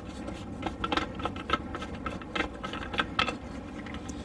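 Irregular light clicks and taps of plastic drain pipe and fittings being handled and dry-fitted, over a low steady hum.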